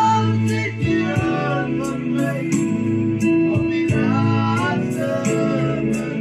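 Two men singing an Afrikaans gospel song together, accompanied by chords on an electronic keyboard.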